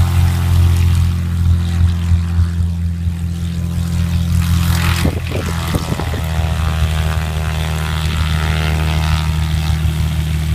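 Small propeller plane's engine running at a steady drone, with a brief clatter of knocks about five seconds in.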